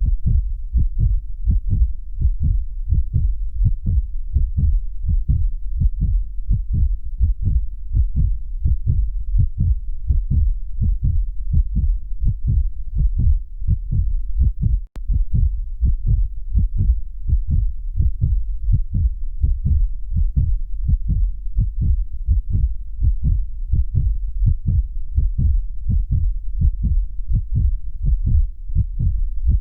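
Human heartbeat sound effect: a steady, regular rhythm of low, dull thumps. It cuts out for a moment about halfway through.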